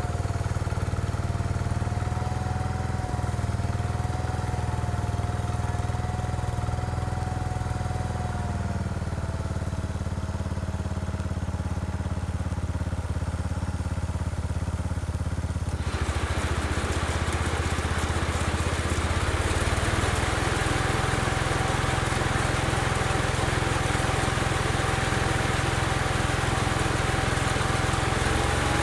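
Case 224 garden tractor engine running steadily with a thin whine over its hum. About halfway through, a loud rushing noise sets in suddenly and carries on over the engine.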